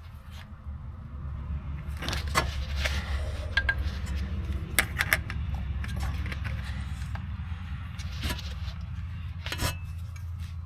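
Scattered sharp metallic clicks and clinks as side cutters squeeze a small metal clamp on a driveshaft slip yoke boot, over a steady low rumble.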